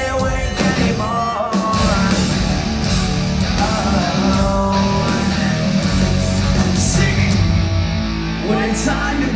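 A rock band playing live through a concert PA: electric guitars, bass and drums, loud and steady.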